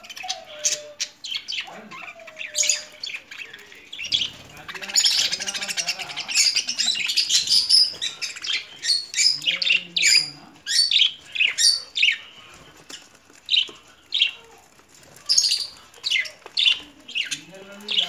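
A flock of budgerigars chattering with many short, sharp chirps and squawks, busiest from about four to eight seconds in.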